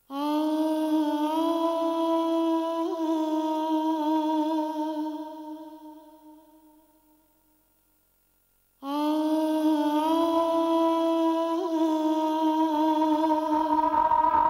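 Runway music: a single long hummed note, wavering slightly, that fades away over about six seconds. After a moment of silence the same note cuts back in suddenly about nine seconds in and is held.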